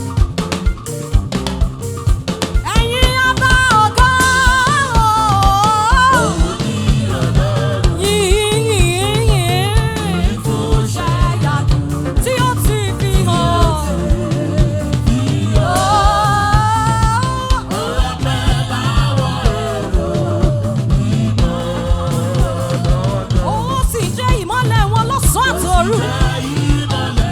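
Live gospel praise music: a band with a drum kit keeps a steady beat under singing with wavering, ornamented melodic lines.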